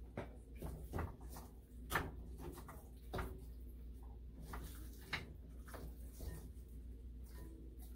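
Irregular light taps and knocks from a plastic spice shaker with a flip-top cap being shaken over a glass bowl of fish.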